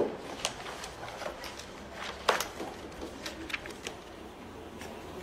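Sheets of paper being handled and turned: scattered soft rustles and flicks, the loudest about two seconds in.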